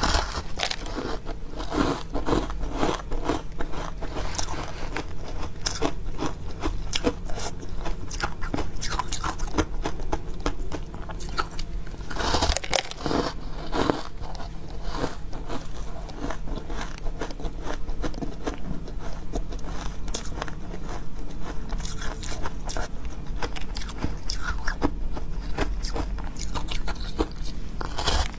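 Close-miked biting and chewing of soft, powdery ice chunks dusted with matcha powder: many crisp crunches in quick succession, with a louder burst of crunching about twelve seconds in.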